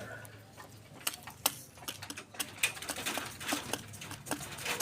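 Domestic pigeons pecking at grain feed: rapid, irregular clicks of beaks striking seed and the feeding surface.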